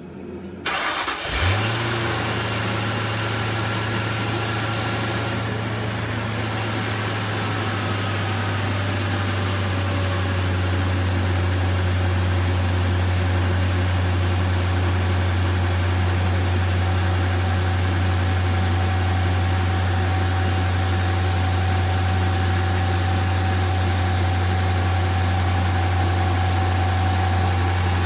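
Ford 4.6-litre V8 of a 1996 Thunderbird cranking and catching right away, then idling steadily with a low hum and a thin high whine.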